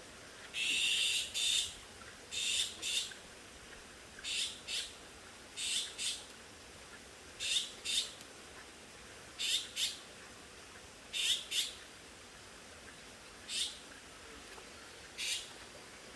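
A bird's harsh, high-pitched calls, mostly in pairs, repeating about every one and a half to two seconds.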